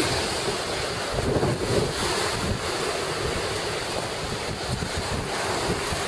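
Ocean surf washing on a beach, with wind buffeting the microphone: a steady rushing with no break.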